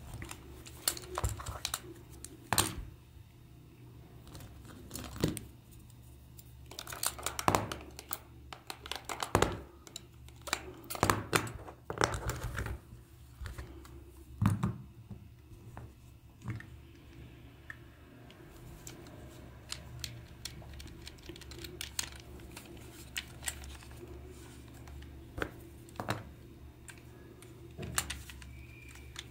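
Handling noise from a hard plastic toy lizard: irregular clicks, taps and knocks as its plastic body and parts are picked up, turned over and set down on the bench, busiest in the first half, over a faint steady low hum.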